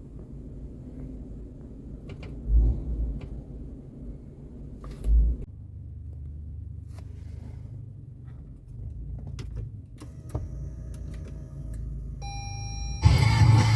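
Low steady rumble with two dull thumps and scattered light clicks, like handling noise; near the end a few steady tones sound and then loud music with singing comes in.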